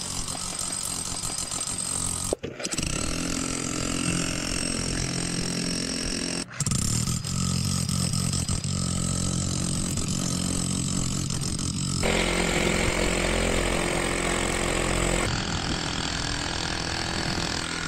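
Powered rod-driving hammer running steadily as it hammers a copper ground rod into the ground. The sound is in several takes that change abruptly a few times.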